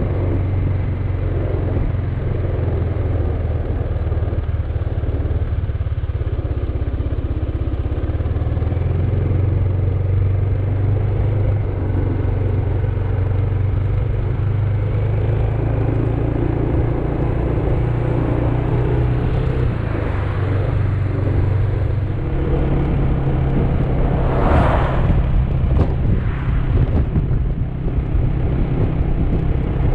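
Motor scooter engine running steadily on the move, its low pitch stepping up and down with speed, with road and wind noise; a few short gusts of wind hit the microphone near the end.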